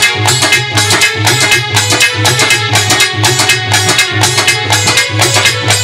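Live Hindi folk ghazal accompaniment: harmonium holding sustained notes over a fast, steady rhythm on hand drums, with strong repeated bass strokes.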